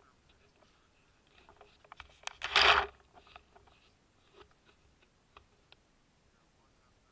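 Paintball marker and its hopper loader, filmed close up from the feedneck: light scattered clicks and rattles, then one loud burst of noise lasting about half a second, about two and a half seconds in.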